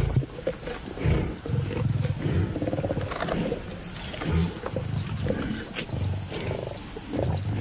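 Lions growling in repeated rough bouts while feeding together on a freshly caught buffalo.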